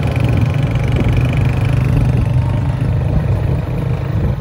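Motorcycle engine running steadily as the bike rides along, a low even drone.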